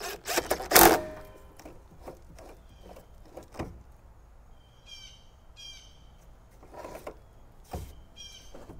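Clinks and knocks of tools and small parts being handled on a pickup's tailgate, loudest in a short clatter about a second in, with a few lighter knocks later. A bird chirps in the background a few times in the second half.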